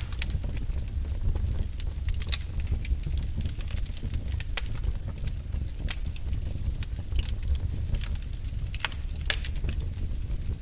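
Wood fire burning in a fireplace: a low steady rumble of flames under frequent sharp crackles and pops. Two or three louder pops come near the end.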